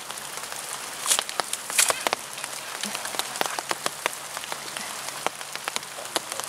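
Steady rain falling on the pond water and on the umbrella sheltering the camera: an even hiss with many scattered sharp drop ticks, and two louder knocks about a second and nearly two seconds in.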